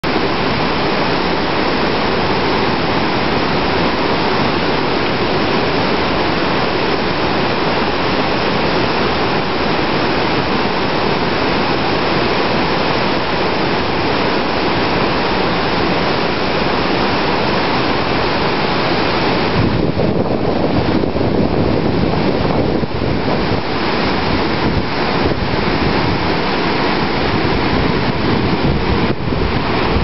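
Dunhinda Falls, a tall waterfall, pouring into its pool with a loud, steady rush of water. About two-thirds of the way through, the hiss thins a little and a deeper rumble comes forward.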